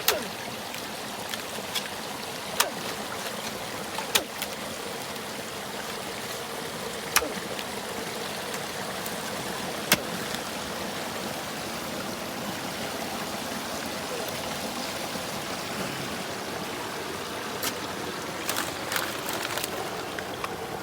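Shallow river water running steadily, with sharp clicks every few seconds and a short cluster of clicks near the end.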